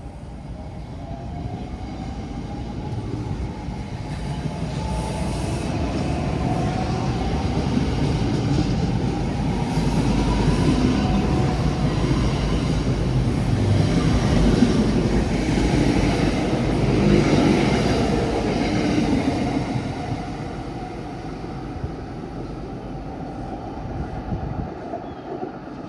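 New Jersey Transit electric commuter train running past on the Northeast Corridor tracks. Wheel-on-rail rumble grows over about ten seconds, stays loud for several seconds, then fades, with a faint whine in the first half.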